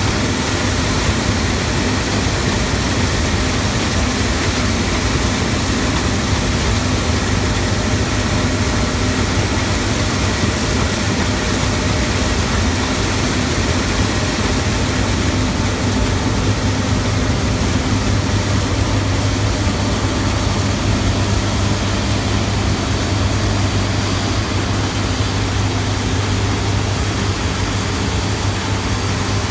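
Combine harvester running steadily while cutting peas, a constant low engine drone under an even mechanical hiss.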